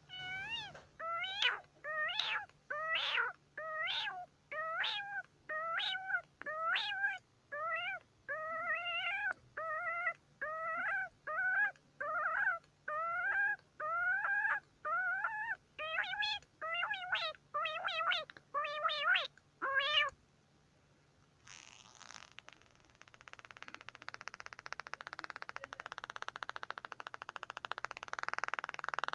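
An animal giving a series of about twenty short pitched cries, roughly one a second. After a brief pause, a rapid buzzing rattle starts and grows louder.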